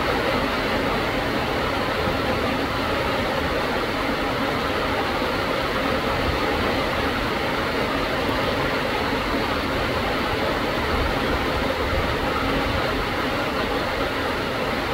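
Heavy rain pouring down steadily onto trees and foliage, an even rushing hiss with no let-up.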